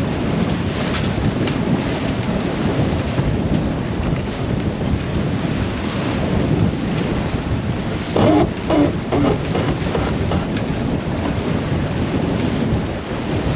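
Wind buffeting the microphone and water rushing past the hull of a sailboat under way in a strong breeze, a steady loud rush, with a short cluster of sharper knocks and clatters about eight seconds in.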